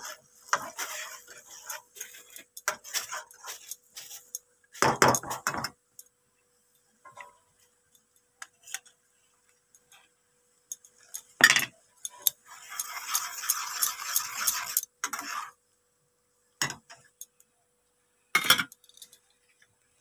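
A spatula stirring and scraping through a thin mustard gravy in a frying pan, with scattered clicks and knocks against the pan. There is a louder clatter about five seconds in and again around eleven seconds, then a few seconds of steady scraping. Single knocks follow near the end.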